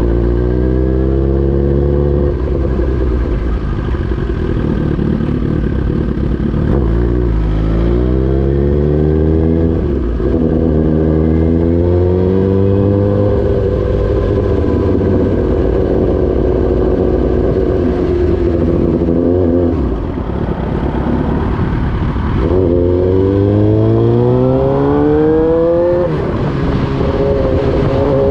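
Suzuki GSX-R1000 inline-four engine through an Austin Racing aftermarket muffler, pulling hard several times. Each time the pitch climbs steadily, then drops sharply as the next gear is taken, with steadier running in between.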